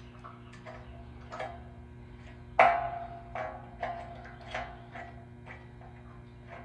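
Irregular metallic knocks and clinks, each with a short ring, as drilled holes in a metal door jamb are threaded with a 1/4-20 hand tap; the loudest knock comes about two and a half seconds in, over a steady low hum.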